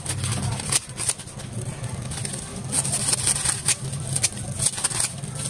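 Scissors snipping through a dried sheet of purple laver seaweed, with crisp crackling cuts coming in quick runs, thickest about three seconds in, as the pieces drop into a stainless steel bowl. A steady low hum runs underneath.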